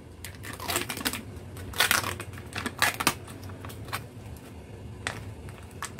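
Thin plastic film crinkling and crackling as it is peeled off a plastic tofu tray, in irregular sharp crackles with several louder ones.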